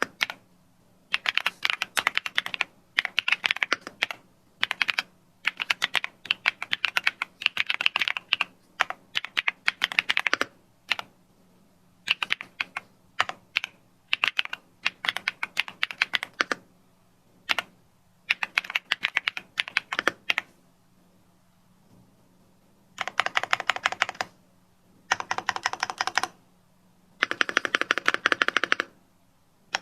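Typing on a Sugar65 65% mechanical keyboard: fast runs of key clacks in bursts of a second or two with short pauses. After a longer pause near the end come three denser runs of keystrokes with a faint ringing tone in them.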